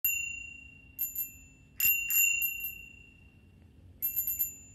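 Bicycle bell rung in short runs of quick dings, each ring a high clear tone that fades out slowly.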